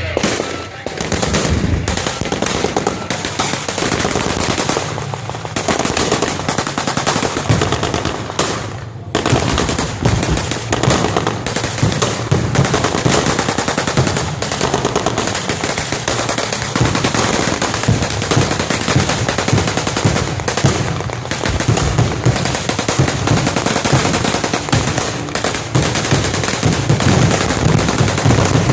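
Sustained rapid machine-gun fire, as in anti-aircraft defence during an air raid, with brief lulls about five and nine seconds in.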